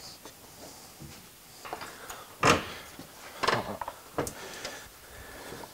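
A few separate knocks and clanks of metal in an engine bay as parts and tools are handled around the hoisted diesel engine. The loudest comes about two and a half seconds in, with others about a second and two seconds later and lighter ticks between.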